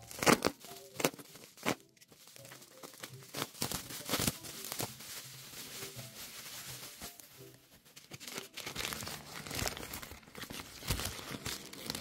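Plastic packaging crinkling and tearing as a box cutter slits black plastic wrap and bubble wrap and they are pulled off a packed stone skull, with irregular sharp crackles, several loud ones in the first two seconds. Newspaper wrapping rustles near the end.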